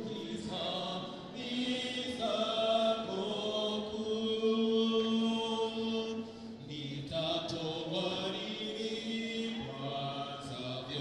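A group of voices singing a slow hymn together, holding long notes.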